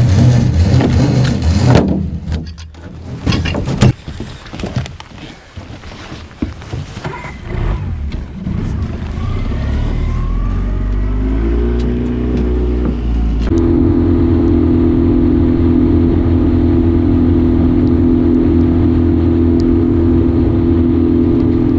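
Boat's outboard motor speeding up and then running steadily at speed, after a few seconds of loud knocking and rustling from the camera being handled.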